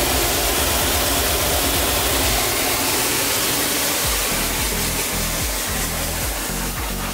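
Water spraying from a handheld shower head into a plastic tub full of shampoo foam, a steady hiss. A beat of background music comes in about four seconds in.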